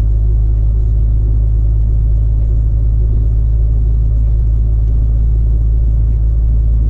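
Volvo FH16 truck driving slowly on a snowy road: a steady low rumble from its 16-litre straight-six diesel and its tyres.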